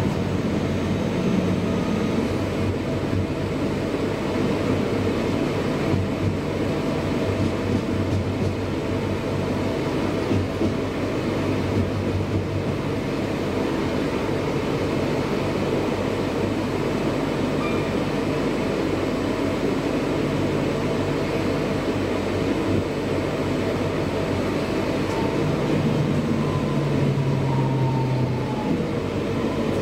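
Interior running noise of a Class 323 electric multiple unit at speed: steady wheel-on-rail rumble under a low traction hum that shifts in steps. A faint whine falls in pitch near the end.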